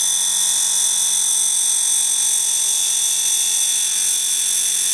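Compressed air hissing with a loud, steady, high whistle from the air-bearing spindle of a home-built end mill sharpening fixture. Under it runs the steady hum of the grinding wheel's motor.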